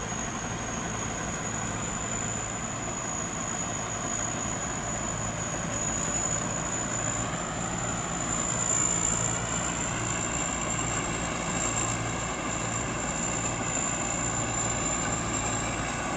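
Thai Seng Yont combine harvester running steadily while harvesting rice, a continuous engine and machinery drone with a constant high whine; the engine pitch shifts slightly around the middle.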